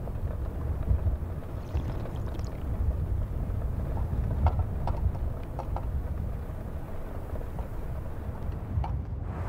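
Wind rumbling on the microphone across open ground, a steady low buffeting, with a few faint small clicks around the middle.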